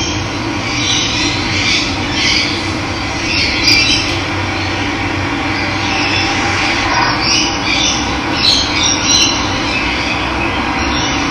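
Steady rush of running water with birds chirping intermittently over it.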